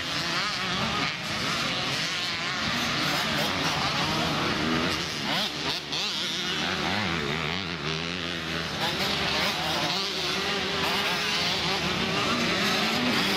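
Several youth motocross bikes racing round the track, their engines revving up and down through the gears and overlapping into one constant din.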